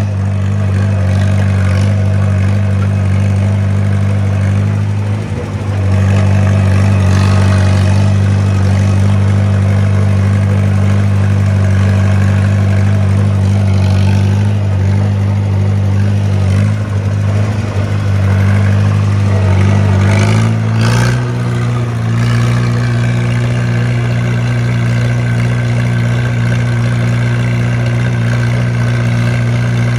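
Farmall Super C's four-cylinder engine running steadily, then speeding up about twenty seconds in and holding at the higher speed.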